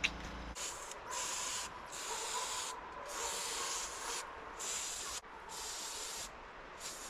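Aerosol spray paint can being sprayed in short bursts, about six hissing sprays each lasting up to a second with brief pauses between them.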